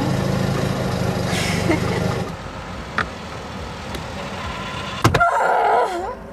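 Fiat 126's small air-cooled two-cylinder engine running, then cutting out abruptly about two seconds in as the engine stalls. A sharp knock comes near the end, followed by a brief wavering sound.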